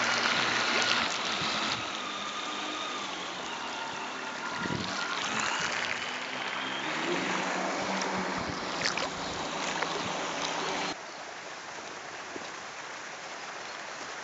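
Radio-controlled model boat running on open water: a thin motor whine that drifts in pitch as the boat moves, over the steady wash of its wake on the water. The sound changes abruptly about two seconds in, and again about eleven seconds in, where it drops to quieter water sounds with no motor tone.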